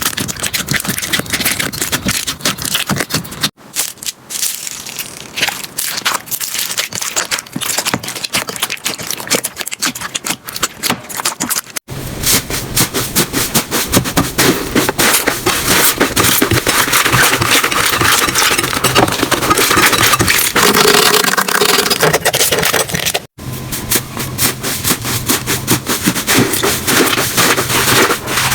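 Slime being squeezed, pressed and poked by hand, making dense crackling, popping and squelching clicks. The sound changes abruptly three times as one slime gives way to another.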